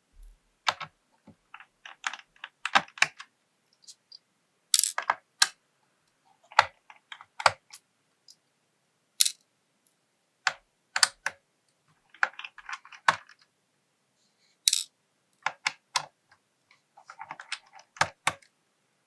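Small screws being unscrewed from a Wooting 2 keyboard's top plate with a precision screwdriver: irregular sharp clicks and taps of metal on metal, some in quick clusters, with a couple of short rasping stretches as the screwdriver turns.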